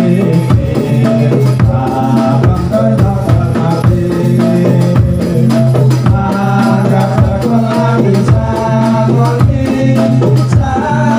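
Music accompanying a Kubro Siswo dance (Javanese folk dance): drums and shaken percussion over a steady low note, with a melodic line on top.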